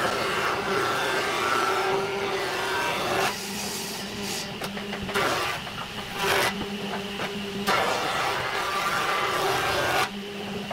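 Jointer (surface planer) running with a steady motor hum as a hardwood board is fed across its cutterhead. Each pass brings a long rush of shaving noise, and the hum stands out alone between passes.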